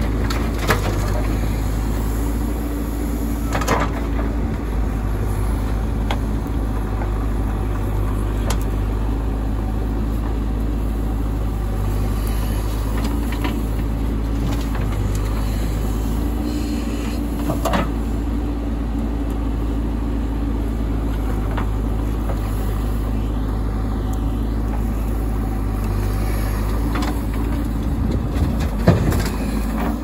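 Backhoe loader's diesel engine running steadily while its arm digs and dumps soil, the engine note swelling every few seconds as the hydraulics work. A few sharp knocks of the bucket and falling rocks break through now and then.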